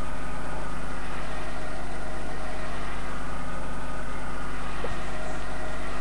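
A steady, unchanging drone: an even hiss with a constant low hum and a few faint steady tones, like a fan or motor running.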